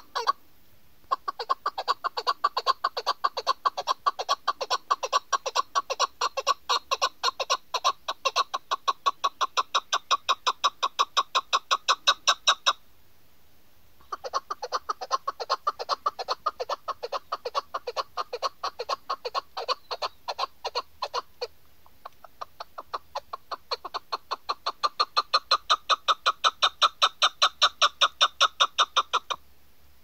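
Chukar partridge calling: fast runs of sharp chuck notes, about six a second, in three long bouts with short pauses between them. The first and last bouts grow louder.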